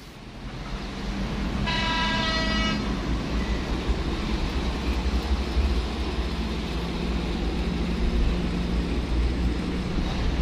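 A heavy vehicle crossing a road bridge, its engine rumbling low and steady. A vehicle horn sounds for about a second around two seconds in, and again briefly at the very end.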